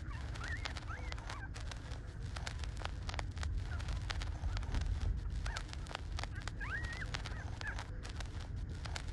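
Newborn puppies nursing, giving short high squeaks in small clusters, about a second in and again near the end, amid steady rapid clicking from sucking, over a low rumble.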